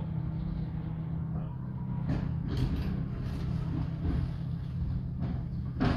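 SBB regional train running, heard from inside the carriage: a steady low rumble with a few sharp clicks and knocks, the loudest near the end.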